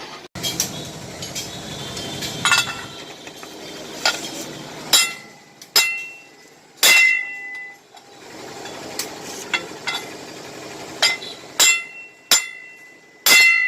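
Steel drum sleeve being hammered into an alloy wheel's brake drum hub: about a dozen hammer blows at irregular intervals, metal on metal. Several blows leave a short clear ring.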